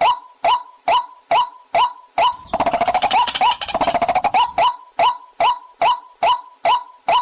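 Recorded waterhen call played as a hunting lure: a short rising call repeated evenly a little over twice a second, broken about two and a half seconds in by a rapid chattering trill lasting about two seconds.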